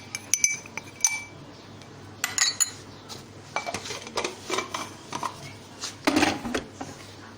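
Metal spoon clinking and scraping against steel kitchenware, a string of short ringing clinks in several clusters, as ground date paste is scooped out of a mixer-grinder jar.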